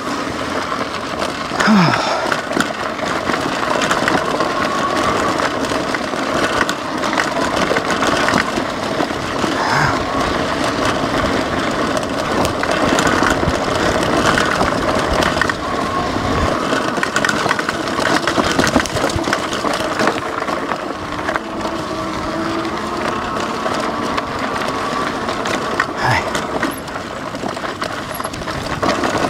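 Lectric XP 3.0 e-bike ridden over a rough dirt trail: a steady electric hub-motor whine over the constant noise of its fat tyres rolling on gravel and the bike rattling, with the odd knock.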